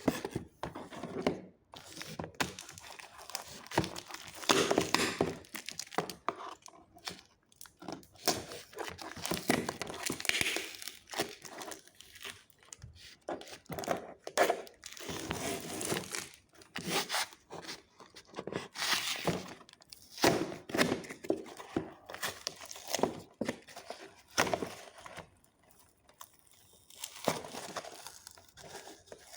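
Hot Wheels toy packaging being handled and torn open: a long run of irregular rustles, tears and knocks of cardboard and plastic.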